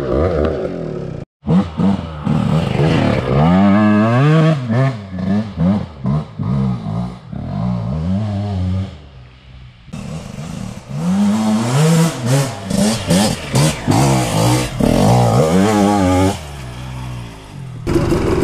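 Two-stroke dirt bike engine revving up and down over and over while being ridden, its pitch rising and falling. The sound cuts out briefly about a second in.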